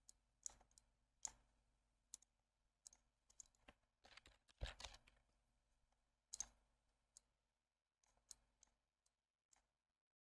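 Faint, irregular clicking of a computer mouse, about a dozen sharp clicks with a quicker flurry about four and a half seconds in.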